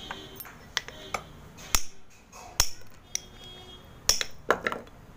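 A knife blade scraping and shaving a lump of multani mitti (fuller's earth clay), giving a string of crisp, sharp scrapes and snaps as flakes break off, about nine in five seconds.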